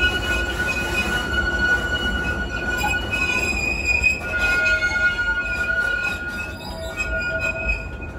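Theme park railway train running on its track: a low rumble of the cars over the rails, with long steady high-pitched wheel squeal that fades in and out.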